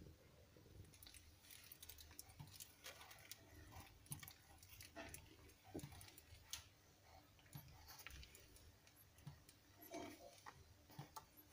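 Faint, irregular wet clicks of a mother cat licking and grooming her newborn kitten.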